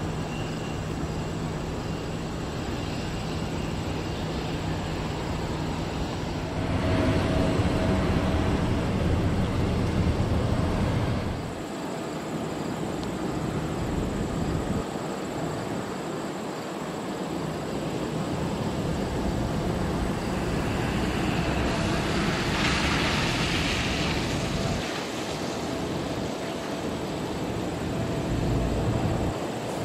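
Jet engine noise from a twin-engine widebody airliner, a steady rushing sound: first the jet climbing away on a go-around after a missed approach, then the same kind of jet on its second approach to land with gear down. The sound changes abruptly twice in the first half, where the footage is cut.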